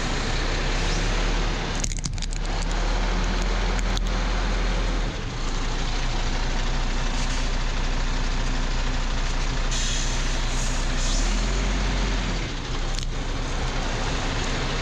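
Heavy truck's engine running as the truck creeps forward and then back. Its low drone shifts in pitch about five seconds in and again near the end, with a brief hiss about ten seconds in.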